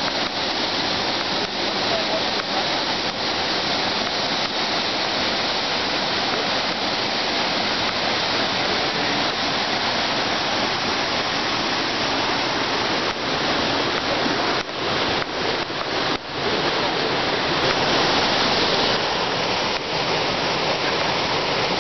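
Rushing whitewater of a river rapid: a steady, loud hiss of water tumbling over rocks, dipping briefly a few times about two-thirds of the way in.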